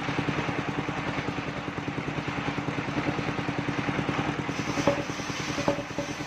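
Engine of a mobile circular sawmill running steadily with an even, rapid beat. A few light knocks come near the end.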